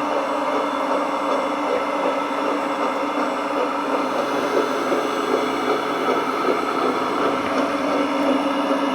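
JDMODEL 1/14-scale RC hydraulic bulldozer running, with a steady mechanical whir from its hydraulic pump and motors.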